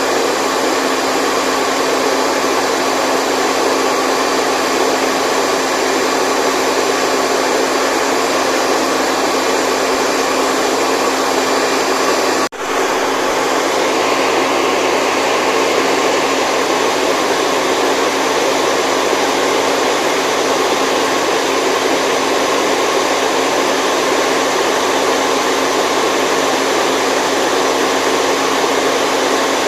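Steady white noise for baby sleep, a constant whooshing hiss with faint steady hum-like tones in it, briefly dipping and cutting out for a split second about twelve seconds in.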